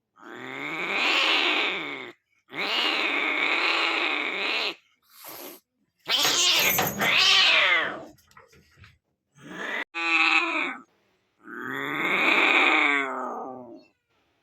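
An animal calling: a series of long, drawn-out pitched cries, each about one to two seconds, separated by short pauses, with a few shorter calls in between.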